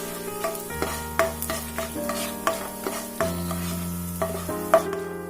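A spoon stirring dried red chillies, curry leaves and ginger frying in hot ghee in a kadai: sizzling, with scattered clicks and scrapes of the spoon against the pan. Soft background music with long held notes plays underneath.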